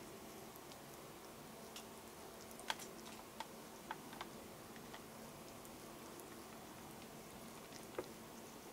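Cat grooming itself, licking its paw and face: a handful of soft, scattered clicks of the tongue, the clearest about three seconds in, over a low steady hum.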